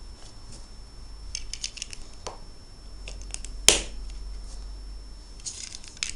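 Plastic Lego bricks clicking and rattling as they are handled and pressed together, with one sharp, loud snap about three and a half seconds in.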